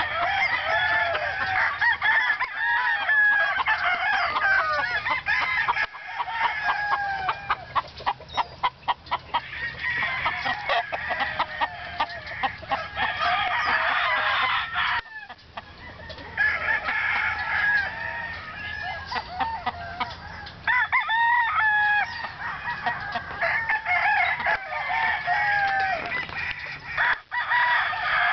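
Several roosters crowing over one another, with clucking between the crows. About a third of the way through there is a run of quick clicks.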